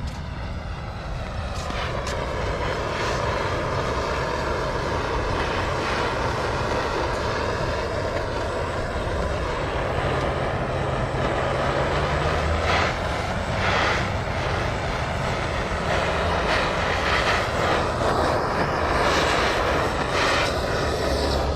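Gas torch flame hissing steadily as it is played over faded black plastic body moulding to heat and restore it, with a low rumble underneath.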